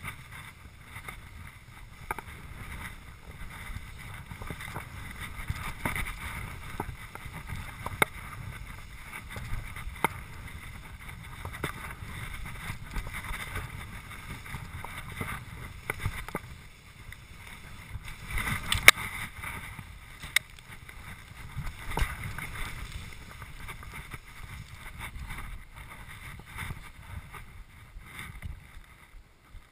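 Skis swishing through deep powder snow, rising and falling in loudness, with wind rumbling on the microphone and occasional sharp clicks.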